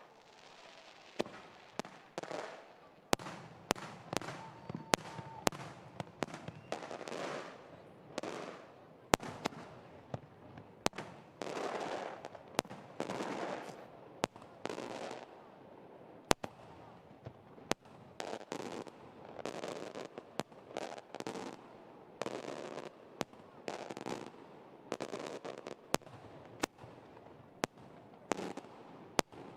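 Aerial fireworks display: sharp bangs from bursting shells about once a second, with stretches of crackling between them.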